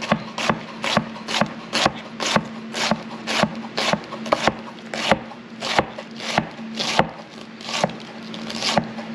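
Chef's knife shredding a head of cabbage on a wooden cutting board: a steady run of cuts through the leaves, each ending in a knock of the blade on the board, about two a second.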